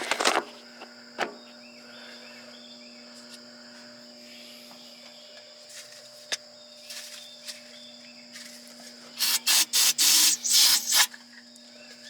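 Brush sweeping out debris: a quick run of about six harsh rubbing strokes near the end, after a single click about a second in, over a faint steady hum.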